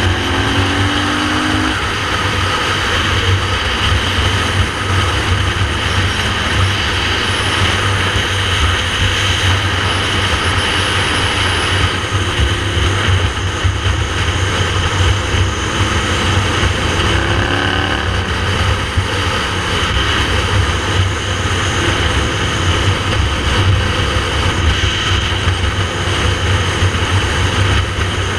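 Wind buffeting the microphone on a motorcycle at road speed, with the motorcycle's engine running underneath. The engine's pitch shifts a few times.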